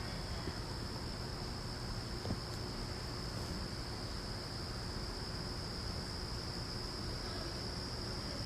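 Insects, likely crickets, keeping up a steady high-pitched chorus that runs on as one continuous note, over faint background hiss.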